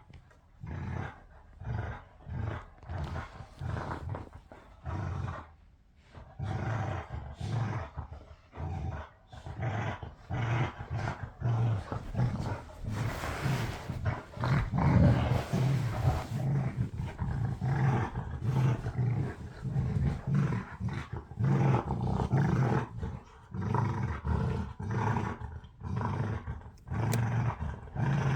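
Two dogs growling as they play over one toy: separate short growls at first, then nearly continuous rapid growling from about six seconds in.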